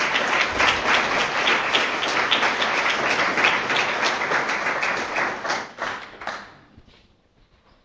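Audience applauding, dense clapping that dies away about six or seven seconds in.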